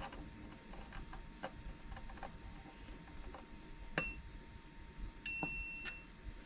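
SkyRC BD250 discharger's beeper, quieted by tape over its speaker: a short high beep about four seconds in and a longer beep near the end, with faint button clicks between, as it is set up for a 25-amp discharge.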